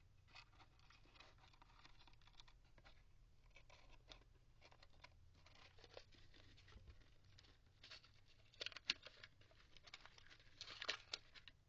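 Faint rustling and scratching as hands work twist ties and a plastic action figure loose from a cardboard packaging tray, with a few louder scratchy bursts late on.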